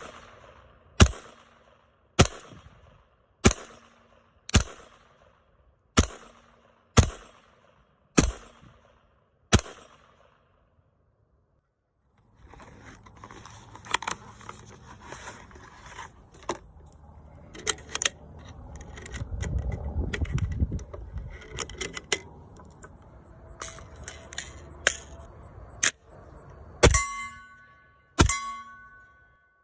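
Handgun fired in a steady string, nine shots about a second apart, each with a short echoing tail. After a pause and a stretch of lower noise with scattered clicks, more shots follow near the end, the last ones leaving a clear metallic ring.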